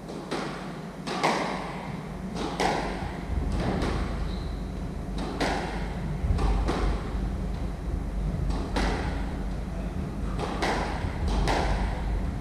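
Squash rally: the ball is struck by rackets and hits the court walls in sharp knocks about once a second, each ringing briefly in the enclosed court.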